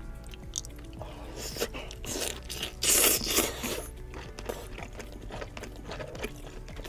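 Close-miked eating of king crab leg meat: mouth sounds of taking in and chewing the meat, loudest about three seconds in, over steady background music.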